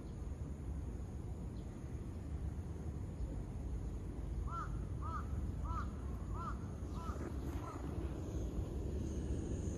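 A crow cawing six times in a quick, even series, faint over a steady low rumble of outdoor background noise.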